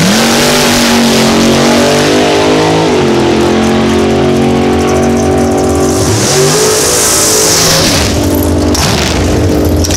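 Chevrolet Beretta drag car launching and making a full-throttle pass down the drag strip, its engine running loud with a climbing pitch that steps at gear changes about three and six seconds in.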